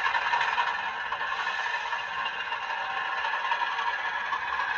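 OO gauge model train running on the layout track: a steady rattling clatter of small wheels on rail.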